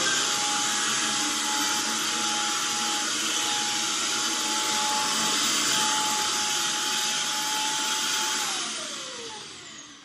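Cordless rechargeable stick vacuum cleaner running steadily, a high whine over the rush of air. About eight and a half seconds in it is switched off, and the whine falls in pitch and fades as the motor winds down.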